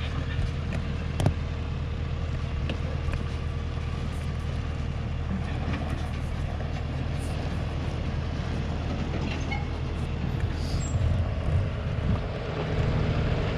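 Diesel work truck's engine running steadily at low speed while towing a gooseneck trailer loaded with culvert pipe, with a few sharp knocks, the clearest about a second in.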